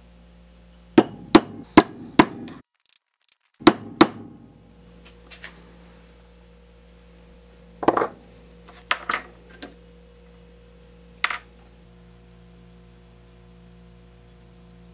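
Hammer blows on a steel punch held against a small metal part on a steel block: four sharp, ringing strikes in quick succession, a brief silent break, two more strikes, then a handful of lighter taps spread out.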